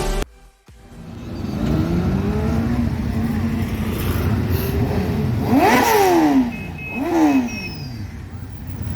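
Road traffic: vehicle engines running and passing, their pitch gliding up and down. About six seconds in comes the loudest moment, a sharp rev that rises then falls, and a second rev follows about a second later.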